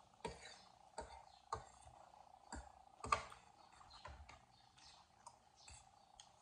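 Cutlery clicking and scraping on plates during a meal, in irregular light clicks about every half second to second. A faint steady hum runs underneath.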